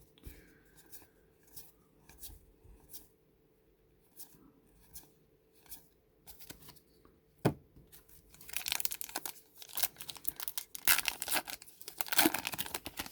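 Light handling clicks and taps, a single sharp knock about seven seconds in, then a baseball card pack's wrapper being torn open and crinkled during the last five seconds.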